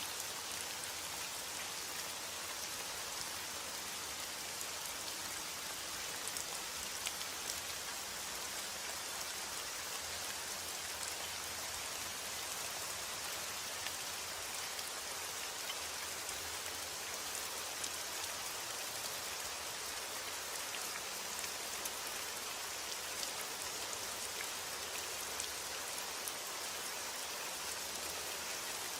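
Steady rain falling and pattering on a surface, with scattered individual drop ticks.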